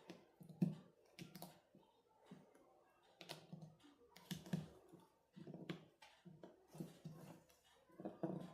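Irregular light clicks and taps, about one a second, each with a soft low knock, from small parts and tools being handled during the repair of a portable Bluetooth speaker.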